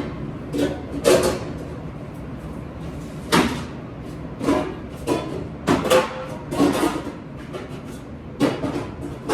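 Dishes and kitchenware clattering in a series of short knocks, roughly one a second, over a steady background noise.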